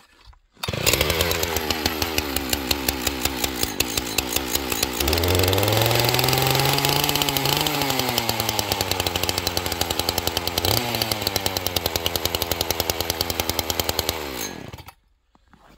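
A two-stroke chainsaw, cold-started at about −25 °F with the choke on, catches about a second in and runs. It revs up and back down in the middle, settles to an idle, then stops near the end.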